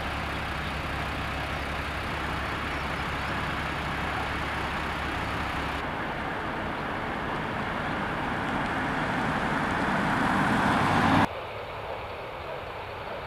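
A vehicle engine idling with a steady low hum. Then a police car drives up a narrow lane toward the listener, its tyre and engine noise growing louder as it nears, until the sound breaks off suddenly near the end and only faint outdoor background remains.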